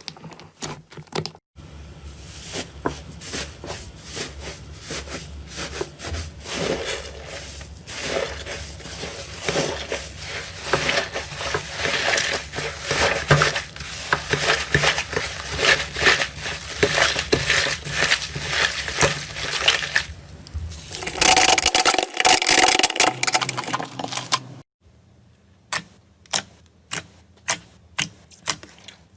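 Slime being squished, pressed and poked by hand: a dense run of crackling, sticky pops and clicks that changes texture between clips. It ends in a series of sharp clicks about two a second.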